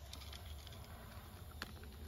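A cat eating from its dish: faint, scattered small crunches and clicks, with one sharper click about one and a half seconds in.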